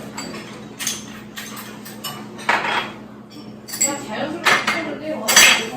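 Dishes and cutlery clattering: a string of short clinks and knocks, the loudest near the end, with voices in the background.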